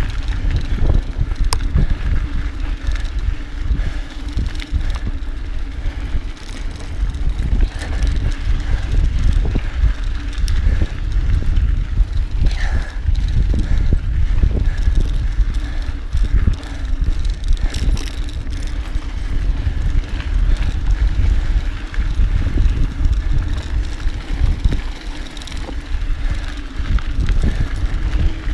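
Mountain bike being ridden along a dirt trail: a steady low rumble of tyres and wind, broken by frequent clicks and rattles from the bike over rough ground.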